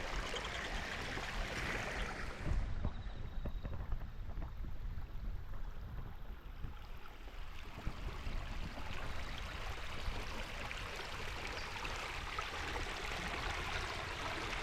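Creek water running steadily, a continuous rush of flowing water, with a brief knock about two and a half seconds in.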